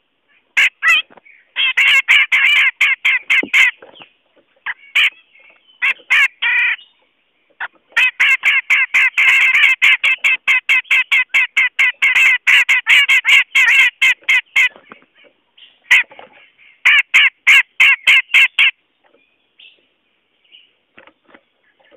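Cucak jenggot bulbul calling in fast runs of repeated chattering notes, about six a second. The calls come in three bursts, the longest lasting about seven seconds in the middle. This is a bird-trapping lure call, played to draw wild cucak jenggot in.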